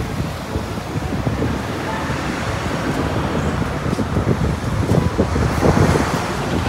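Large tour coach driving past close by, its engine and road noise growing a little louder as it passes, with wind buffeting the microphone.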